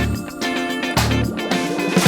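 Background music with a plucked guitar and bass, with strong beats about once a second.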